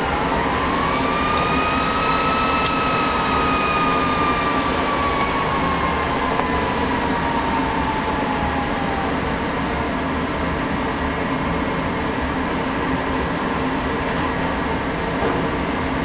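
Lenovo x3550 M4 server's cooling fans running hard during boot: a whine that climbs for about two seconds, then slowly sinks and fades over the next eight seconds as the fans ramp down, over a steady rush of air. The newly added pair of fan modules has cleared the fan error.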